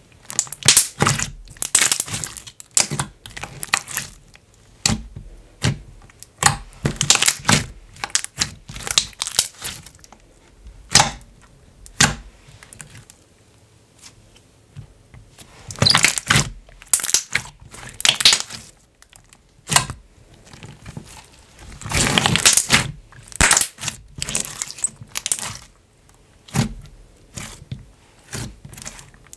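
Thick clear 'Ultra Violet' slime, inflated and stretchy, worked by hand. It gives crackling clusters of bubble pops in bursts, with short pauses between them.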